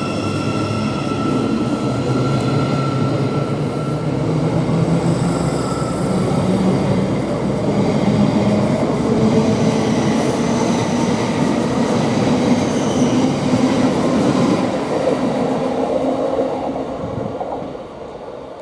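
Thameslink Class 700 electric multiple unit pulling out of the station, its traction motors whining over the rumble of the wheels as it accelerates. The sound fades near the end as the train draws away.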